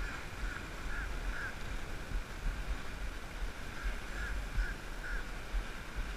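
Wind buffeting the microphone in low gusts, with short honk-like calls about twice a second: one run of four at the start and another of three about four seconds in.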